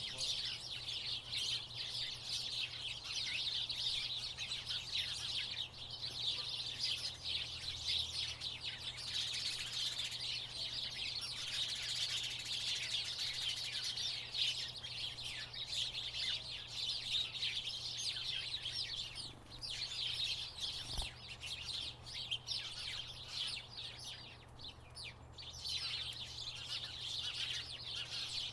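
A flock of house sparrows chirping continuously in dense, overlapping chatter, which thins out for several seconds about two-thirds of the way through. A faint steady low hum runs underneath.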